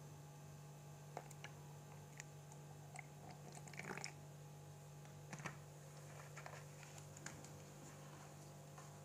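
Thums Up cola poured from a bottle into a plastic bowl, with a short crackly splash about four seconds in, followed by faint scattered ticks of carbonation bubbles popping. A low steady hum runs underneath.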